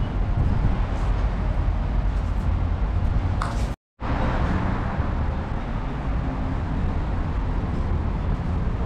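Steady low rumble of outdoor urban background noise, like distant road traffic. It cuts out completely for a moment about four seconds in.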